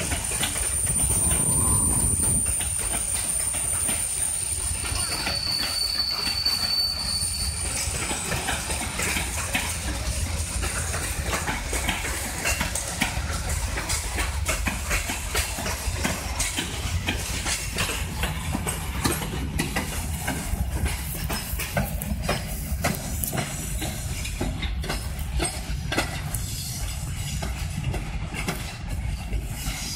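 Freight train rolling past: a steady low rumble with wagon wheels clacking over rail joints throughout, and high-pitched wheel squeals during the first several seconds.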